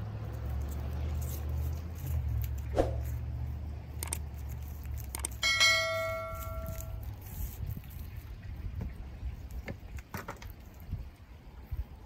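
Handling noises while a seatbelt silencer is fitted onto a Jeep's seatbelt: a few sharp clicks, then about five and a half seconds in a metal part, likely the seatbelt's latch plate, strikes something and rings for over a second, the loudest sound. A low rumble fills the first few seconds, and small scattered clicks follow the ring.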